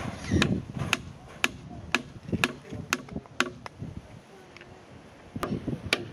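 Hammer blows on the wooden stakes of a canoe's outrigger float, about two knocks a second, with a short pause in the middle.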